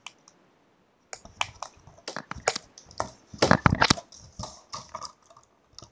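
Plastic packaging crinkling and crackling as it is handled: a run of irregular crackles and clicks, densest in the middle.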